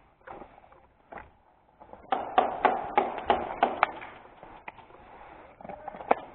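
Airsoft pistol fired rapidly: a string of about eight sharp shots in under two seconds, followed by one more single crack near the end.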